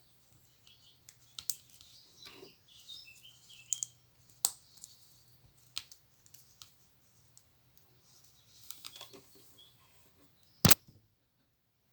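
Plastic Lego pieces clicking and rattling as they are handled and pressed together, a scatter of small irregular clicks with one much louder click near the end.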